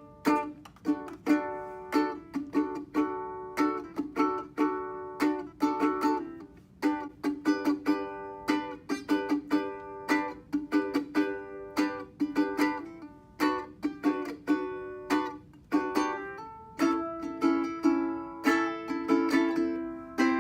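Ukulele strummed in a steady rhythm of about two chords a second, each chord ringing and fading, with a brief pause twice.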